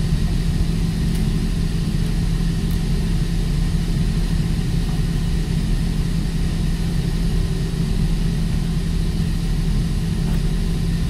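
Steady, loud drone of running machinery, a low even hum that does not change.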